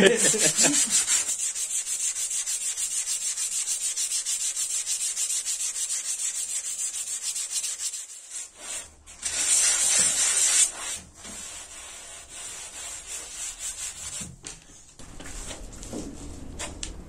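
Body filler on a car hood being sanded with coarse 80-grit sandpaper: steady rhythmic rasping strokes, briefly louder about ten seconds in and quieter over the last few seconds.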